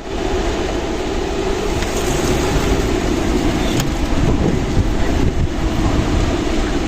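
Strong desert wind blowing steadily, a dense rush of noise with a heavy low rumble.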